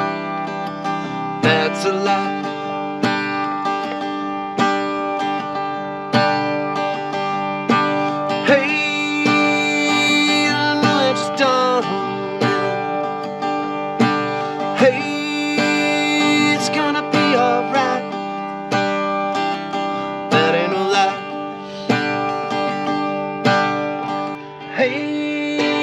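Background music led by a strummed acoustic guitar with a steady beat.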